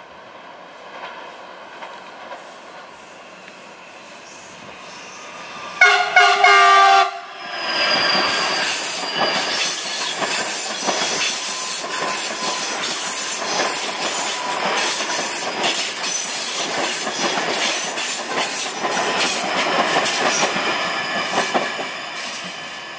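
CPTM series 9500 electric multiple-unit train sounding its horn in one blast of about a second and a half, a chord of several steady notes, about six seconds in. The train then runs past with wheels rumbling and clattering on the rails.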